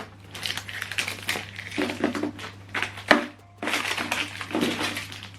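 Plastic clatter and crinkling as the HP DeskJet 4120e printer's access cover is opened and the inside handled, with several clicks; the sharpest comes a little after three seconds in. A low steady hum runs underneath.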